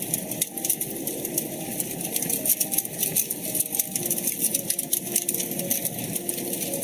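Wood fire crackling in a fireplace: a dense run of small, quick pops and snaps over a steady low rushing sound.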